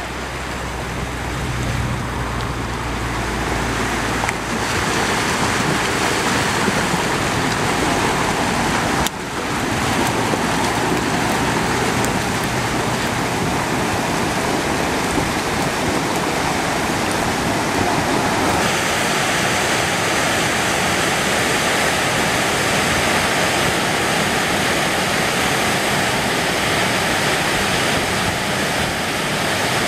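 Flash-flood flow of muddy water laden with wood debris, a steady rushing and churning, with abrupt shifts in level and tone about nine seconds in and again past the middle.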